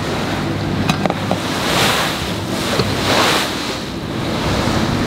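Bow wave of a trawler under way, water rushing and splashing along the hull and swelling louder twice, about two and three seconds in. Wind buffets the microphone, and the engine hums low and steady underneath.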